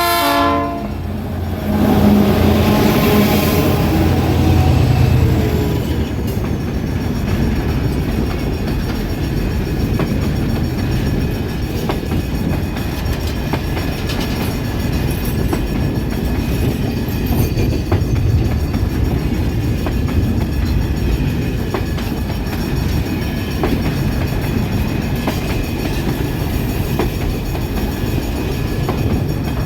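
A diesel freight train passing. The locomotive horn ends about a second in, then the FIAT GAIA and EMD GT-22CW diesel locomotives go by with their engines running loudly for a few seconds. A long string of empty container flats and grain hoppers follows, rolling past with a steady rumble and wheel clickety-clack.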